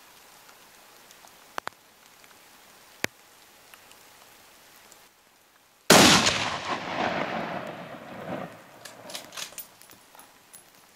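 A single hunting rifle shot about six seconds in, its report echoing and dying away over about two and a half seconds, over a steady hiss of rain. A few sharp clicks follow near the end.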